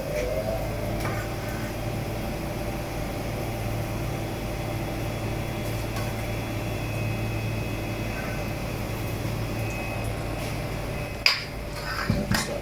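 Steady mechanical hum, like a kitchen fan or appliance running, with a sharp click near the end.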